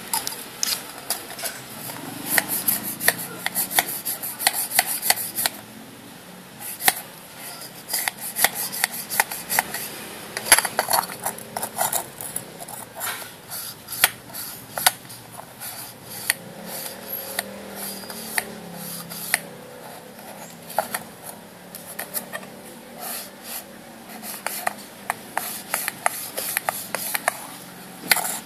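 Thin tin cans being handled, turned and set down on a stone countertop: irregular small metallic clicks, taps and scrapes, thickest in two bursts early on and around the middle.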